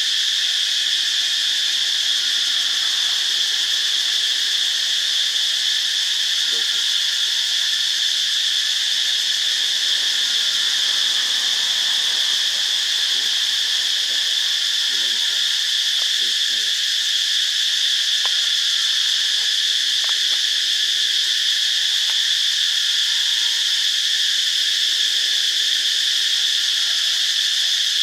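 Insects droning in chorus: a steady, high-pitched buzz that holds an even level throughout.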